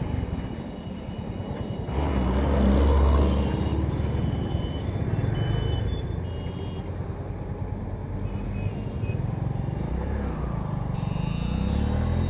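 A Bajaj V15 motorcycle's single-cylinder engine running at road speed with wind and road noise, as heavy trucks pass, their low rumble loudest about two to three seconds in. A series of short high beeps sounds in the second half.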